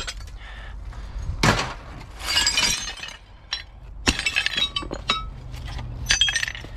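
Scrap being broken apart by hand: a sharp crack about a second and a half in, then a clatter and several more knocks with glassy clinking and shattering.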